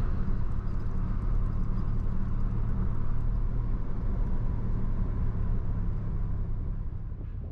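Car on the move: steady engine and road rumble, likely the Suzuki Jimny JB64 on the drive, easing off near the end.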